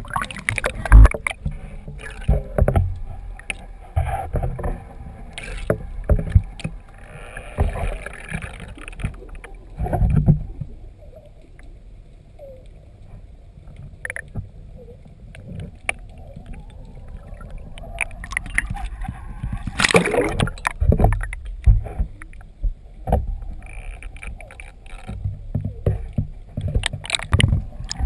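Kayak paddling: paddle strokes splashing in the water and water slapping the hull, picked up by a GoPro on the kayak. Irregular loud knocks and thumps against the boat come through the whole time.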